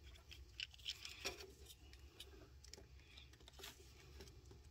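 Faint scattered clicks and scraping of a small pick and a wire terminal being worked into a plastic engine-computer (PCM) wiring connector, over a steady low hum.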